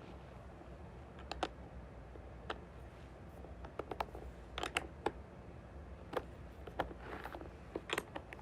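Irregular light clicks and taps, a dozen or so at uneven spacing, over a steady low hum.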